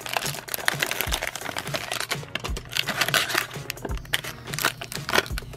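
Foil blind-bag wrapper and a clear plastic inner bag crinkling and rustling as they are handled by hand and the small figure is pulled out, in a dense run of irregular crackles.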